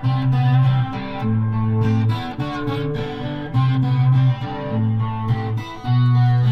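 Instrumental introduction of a song, led by guitar over a steady rhythm with a repeating bass line.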